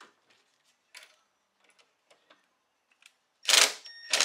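Compact cordless drill-driver run in two short bursts near the end, driving a fastener, after a few light clicks of handling the tool and parts.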